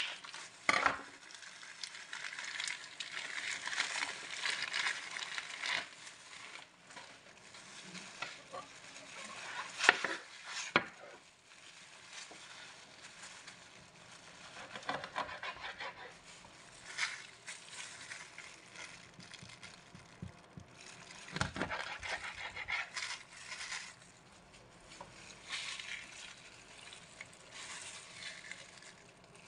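Plastic packaging and disposable plastic gloves crinkling and rustling as a whole raw chicken is unwrapped and handled on a cutting board, loudest in the first few seconds, with a few sharp knocks.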